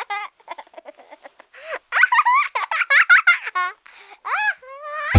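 A child giggling and laughing in high-pitched, quick bursts, with short pauses between bouts.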